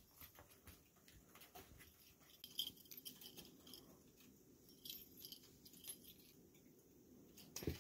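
Near silence: room tone with a few faint, scattered ticks and taps, and a sharper click just before the end.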